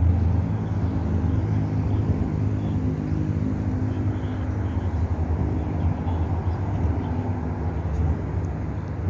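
Steady low engine drone, easing off a little toward the end.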